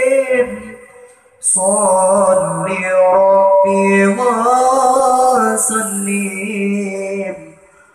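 A man singing an Arabic devotional chant solo into a microphone, with long held notes and wavering melodic runs. The voice trails off about half a second in, comes back about a second later, and tails off again near the end.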